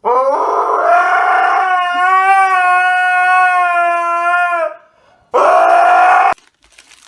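A long, loud held wail from a voice, one steady pitch for about four and a half seconds, then a second shorter wail about a second later.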